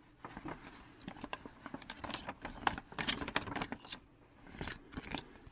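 Paper rustling and crinkling as a folded poster and paper inserts are handled, heard as irregular small crackles and clicks.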